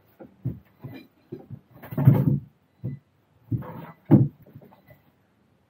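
Knocks and clunks as a replacement front drive shaft for a Tesla Model 3 is worked into place and threaded into the gearbox: a run of short knocks, with louder clunks about two seconds in and just after four seconds.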